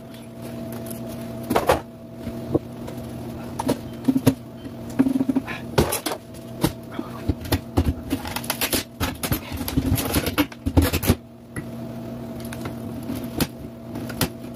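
Irregular knocks and thuds as a kitchen wall cabinet is handled, over a steady low hum.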